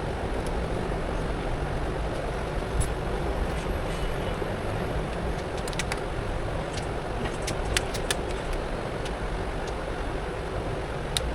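Steady traffic noise from the road, with a few light, sharp clicks scattered through it, the clearest in a cluster about six to eight seconds in and one near the end.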